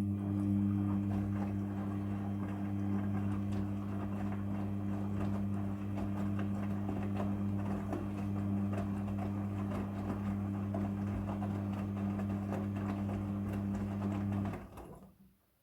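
Midea front-loading washing machine running with a steady electric hum over the sound of water flowing, which cuts off abruptly about a second before the end.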